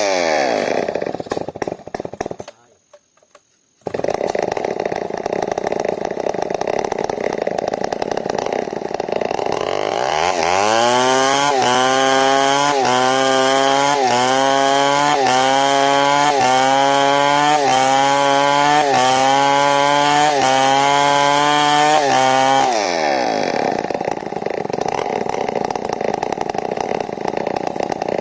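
New West 070 two-stroke chainsaw. At the start its revs drop away, and after a brief cutout it runs rough and low. About ten seconds in it climbs to high revs and holds there for around twelve seconds, its pitch wavering a little over once a second as it works through the timber, then drops back to a low run near the end.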